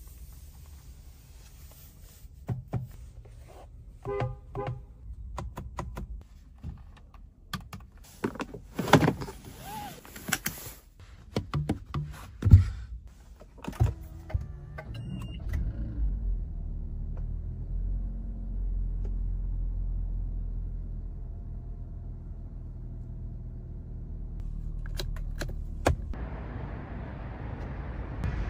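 Scattered clicks and knocks of cabin controls. About halfway through, the Lexus NX's four-cylinder engine starts at the push of its start button and settles into a steady idle, swelling for a few seconds before easing off a little.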